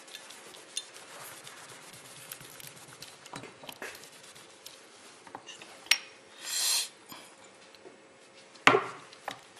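Cloth wiping and rubbing on a small metal test disc on a tabletop, with light clicks and taps. A short hiss comes about two-thirds of the way in, and a sharp knock near the end is the loudest sound.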